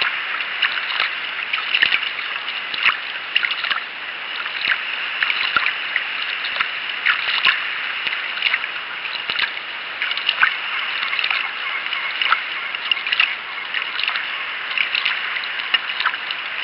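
Water splashing, dripping and trickling as a sea kayak is paddled: a steady hiss of moving water with frequent small, irregular splashes from the paddle and hull.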